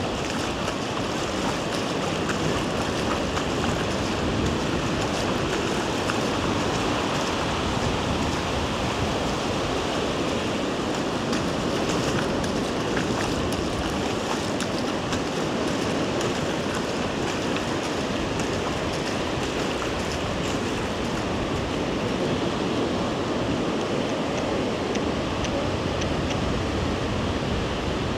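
Ocean surf washing onto a beach, a steady, even wash of breaking waves.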